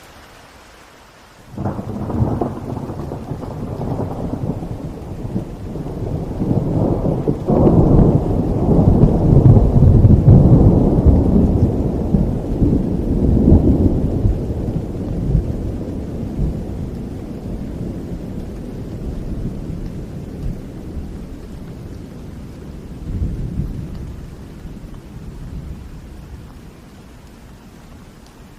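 A long roll of thunder over steady rain. It breaks suddenly about a second and a half in and rumbles loudest a few seconds later. It swells once more near the end and then dies away, leaving the rain hiss.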